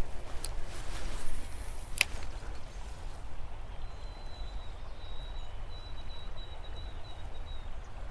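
Steady low outdoor rumble, with two sharp clicks in the first two seconds. From about the middle, a thin high tone holds for roughly four seconds.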